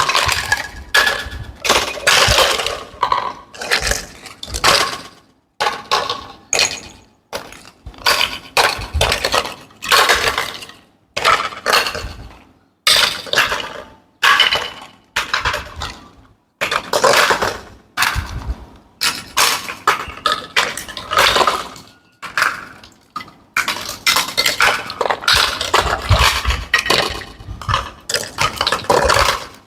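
Small plastic toy pieces clicking, clinking and rattling as they are unpacked and handled, in short bursts with brief silent breaks between them.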